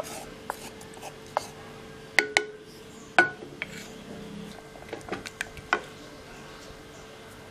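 A wooden spatula scraping and knocking against a frying pan and a metal pressure cooker as vegetables are scraped in and stirred into cooked dal: a series of sharp clinks and taps, the loudest about two and three seconds in, then a quicker cluster of lighter taps near the end, over a faint steady hum.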